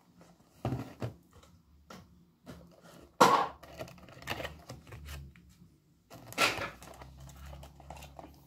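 Cardboard model-bus box being opened and its packing handled: a series of rustles and scrapes, the loudest about three seconds in and again about six seconds in.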